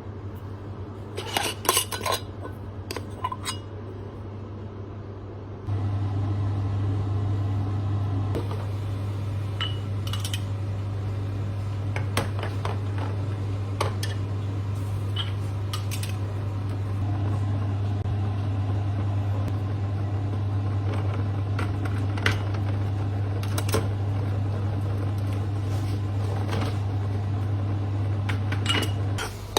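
Kitchen dishes and utensils clinking and knocking now and then, over a steady low hum that gets louder about six seconds in and stops near the end.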